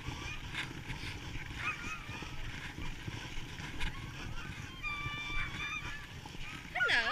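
Many Alaskan huskies in a kennel yard yelping and howling together, high wavering cries overlapping, with a louder burst of cries near the end.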